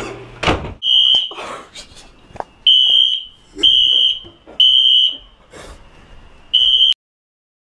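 Fire alarm sounding: loud, high-pitched beeps in groups of three with a longer pause between groups, set off by smoke from a smoke grenade. It cuts off abruptly near the end.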